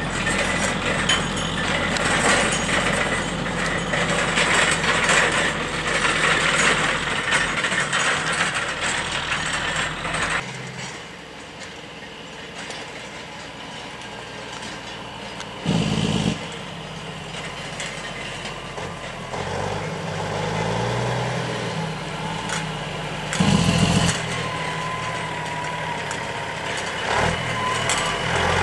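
Log truck running, an engine with mechanical rattling and clatter. About ten seconds in it drops much quieter, and two short loud knocks come later, the second the loudest.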